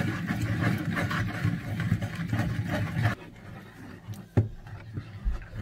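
Wooden pestle stirring and grinding a thick oil-and-potash spice paste in a wooden mortar: a rough rubbing, grinding noise for about three seconds, then quieter, with a single knock about four seconds in.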